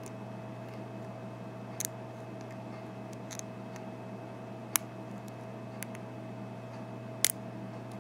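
Lock pick and tension tool working the pin-tumbler cylinder of an American 5200 series padlock: a few small, sharp metallic clicks at irregular intervals, the loudest about halfway through and near the end, over a steady low hum.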